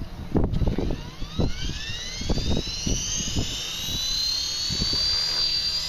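Align T-Rex 450 Pro V2 electric RC helicopter spooling up: the motor and rotor whine rises steadily from about a second in and levels off near the end, over low buffeting thumps in the first few seconds. The main blades run out of track after a ground strike bent the links.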